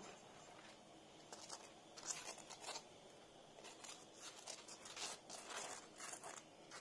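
Faint scratching and rubbing as a fork smears a pat of butter over the crisp crust of a fried chudu flatbread on a steel tray, in short strokes that come more often in the second half.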